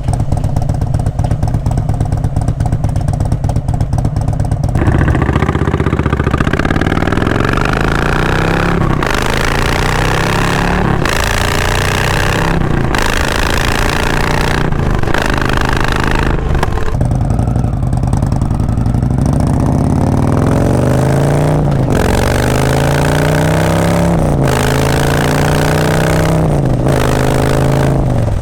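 Indian Springfield V-twin motorcycle with a Freedom Performance aftermarket exhaust, ridden. The engine note is steady for about five seconds, then rises again and again as the bike accelerates through the gears, the pitch dropping back at each shift.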